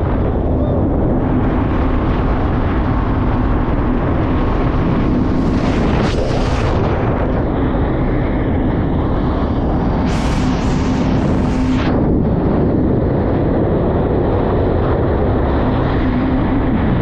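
Yamaha WaveRunner jet ski running steadily at speed on the water, a steady engine drone under wind on the microphone, with two bursts of hiss about five and ten seconds in. The ski is on a test run after repairs and is running smoothly.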